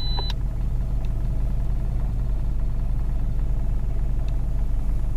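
Steady low rumble of a car engine idling at a standstill, heard inside the cabin. A click a moment after the start as the dash-mounted two-way radio's transmission cuts off.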